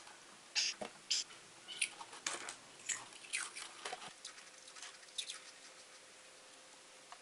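Close-miked eating: a run of short, crisp crunches and wet chewing sounds, thinning out after about five seconds.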